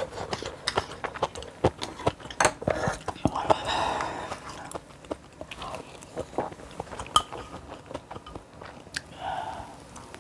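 Close-miked eating sounds: a person chewing and biting food, with many sharp wet clicks and smacks and a denser stretch about four seconds in.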